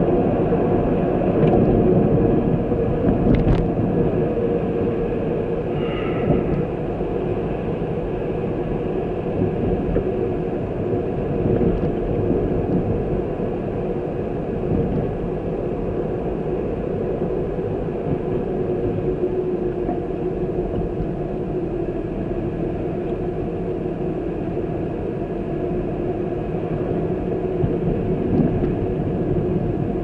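Steady engine and road rumble of a vehicle on the move. A few faint clicks come in the first seconds, and a short high tone sounds about six seconds in.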